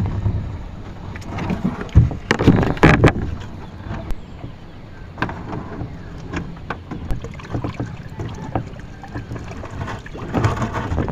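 Water splashing with irregular knocks and clatter, the heaviest about two to three seconds in.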